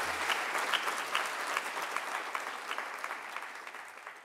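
Audience applauding in a lecture hall, a dense patter of many hands clapping that tapers off near the end.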